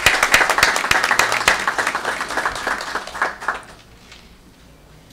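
Applause from a small group of people clapping, thinning out and dying away about three and a half seconds in.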